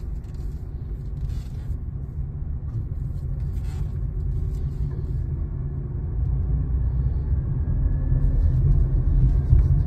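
Low engine and road rumble inside the cabin of a small Suzuki hatchback as it drives off, growing gradually louder as it gathers speed.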